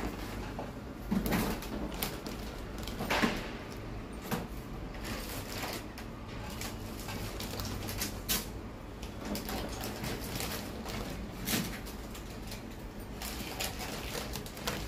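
Plastic bread packet crinkling and rustling, with irregular light clicks and taps, as slices of white sandwich bread are pulled out and laid on a steel plate.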